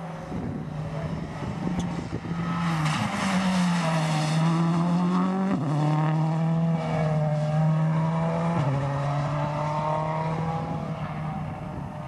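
Ford Focus WRC rally car driving past at speed. Its engine note swells in, holds loud, then fades near the end. The pitch drops sharply twice, about five and a half and eight and a half seconds in, with gear changes.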